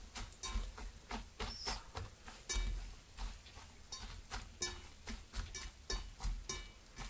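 A hand squeezing and mixing crumbled rice cakes soaked in warm water in a stainless steel bowl, making a run of irregular crackles and crunches, several a second, as the crumbs soften.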